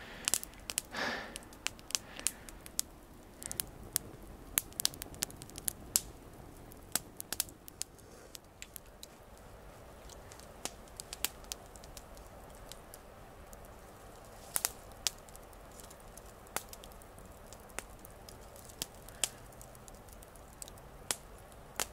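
Small wood campfire crackling, with sharp irregular pops throughout.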